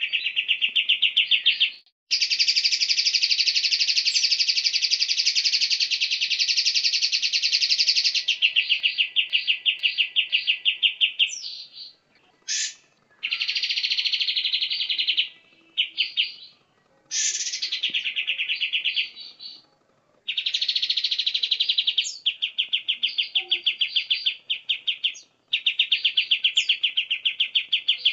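Caged songbird masteran song of cucak cungkok, cucak kinoi and kapas tembak: fast, rattling 'nembak' trills of rapidly repeated high notes in bouts, the longest running about nine seconds, broken by short pauses.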